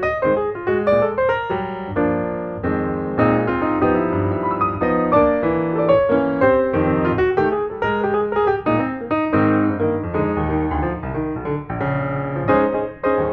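Background piano music, a quick run of notes over chords.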